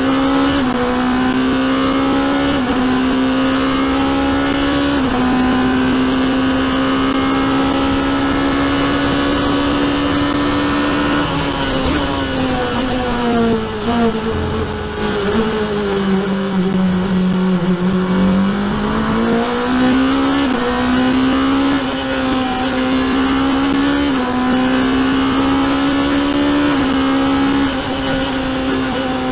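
Open-cockpit sports-prototype race car's engine, heard onboard, running hard at high revs with a fairly steady pitch. About midway the pitch sags for several seconds as the car slows for a corner, then climbs back as it accelerates away.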